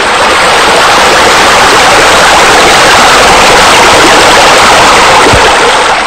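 Water spilling from a wall water feature into a spa, a loud steady rush of falling water.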